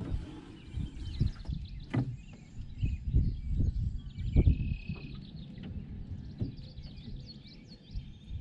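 Wind buffeting an action camera's microphone in irregular low gusts, with small birds chirping in short, pitch-sliding calls.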